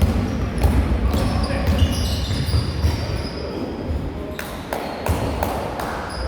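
Carom billiard balls striking one another and the cushions: a run of sharp clicks, several with a short high ring, over a steady low room rumble.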